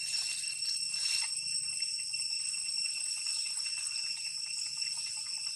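Cicadas buzzing in a steady, high-pitched drone that does not let up.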